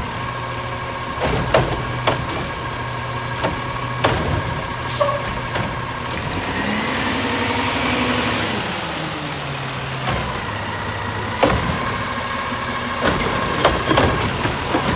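Garbage truck running, its engine humming steadily, with scattered sharp clanks and knocks. About halfway through, the engine pitch rises and then falls back over a few seconds.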